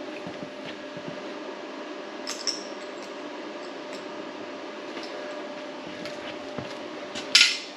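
Steel weld-kit pieces being handled and set in place for fit-up: a couple of light metal clicks about two seconds in and a sharp metal clank near the end, over a steady machine hum.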